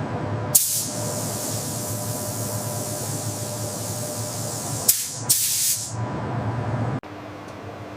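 A loud, steady hiss starts sharply about half a second in, with two short louder blasts around five seconds, over a low steady hum. It cuts off abruptly about seven seconds in, leaving only the hum.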